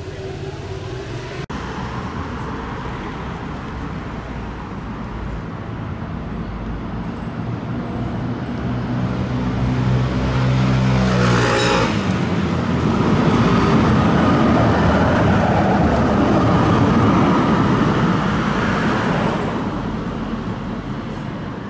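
A tram approaching and running past on street track, its running noise building to a peak a little past the middle and then fading, with a low rising hum as it nears. Road traffic runs alongside.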